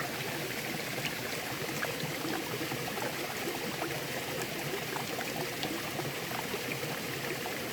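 Clear stream water running steadily over stones, an even rushing with small splashes and drips throughout.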